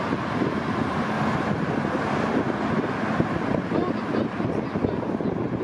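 Jet airliner engines producing a steady rush of noise, with wind buffeting the microphone.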